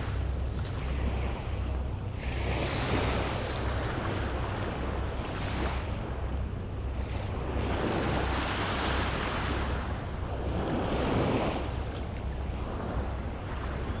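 Small waves washing up onto a sandy beach, the surf swelling and fading every few seconds, with wind rumbling on the microphone.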